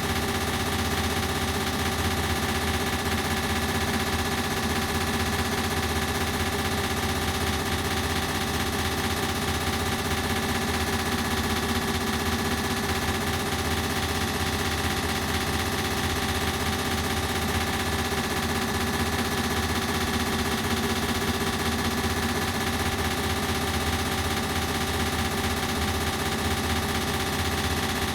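Ceiling fan running steadily, a constant hum with a fast fluttering texture, thickened by an added echo effect.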